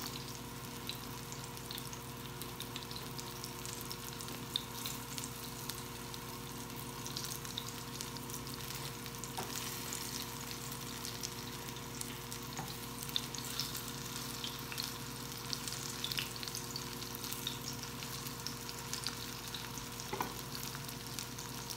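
Dakor na gota, gram-flour fritters, sizzling and crackling as they shallow-fry in oil in a nonstick frying pan. A few light knocks come from a wooden spatula turning them, over a steady low hum.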